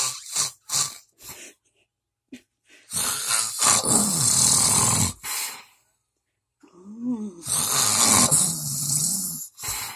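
Loud, rasping snoring: a few short snorts in the first second or so, then two long snores of about two seconds each, roughly four seconds apart.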